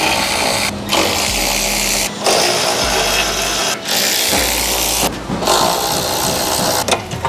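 Cordless ratchet running on bolts of a car's front bumper reinforcement bar, in runs of a second or more broken by about five brief pauses as it unfastens them.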